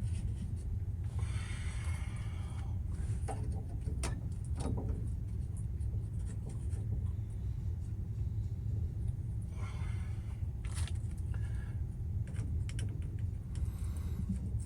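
Hand work with a PEX crimp tool and fittings: light scraping, rubbing and scattered metallic clicks, with two longer scrapes, over a steady low hum.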